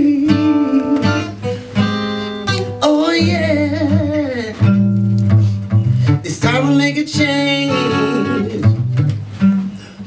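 Live acoustic guitar and a man's singing voice: held guitar chords under long, wavering vocal runs that bend up and down in pitch, most clearly about three seconds in and again past the middle.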